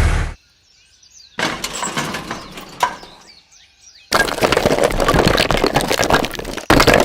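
Dense clattering noise made of many small knocks and impacts, coming in three bursts that cut in and off sharply, the middle one the longest. Small birds chirp faintly in the gaps between them.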